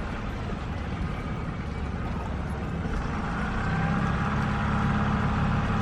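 Motorboat engine running steadily, its low hum growing a little stronger about three and a half seconds in.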